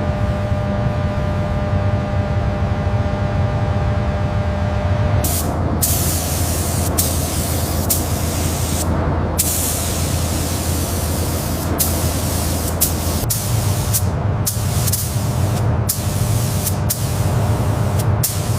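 A low hum with a few steady tones, then, from about five seconds in, a loud hiss of compressed air let out in repeated bursts with brief breaks, as from a trigger-operated air tool in restoration work.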